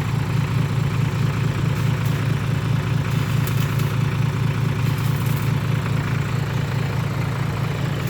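Vehicle engine idling steadily, its low exhaust note pulsing evenly, through a modified exhaust whose rear muffler has been drilled out.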